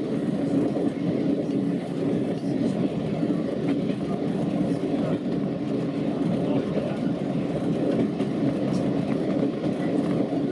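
Diesel multiple unit running along the line, heard from the driver's cab: a steady diesel engine drone over the rumble of wheels on rails, with a few faint clicks from the rail joints.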